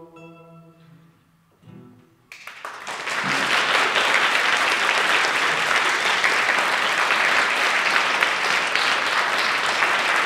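The last acoustic guitar chord of the song rings and fades away, then audience applause starts suddenly about two seconds in and continues loudly and evenly.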